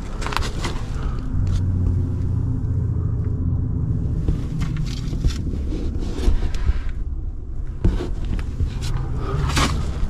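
Low rumbling noise on the camera's microphone, with scattered light scrapes and clicks.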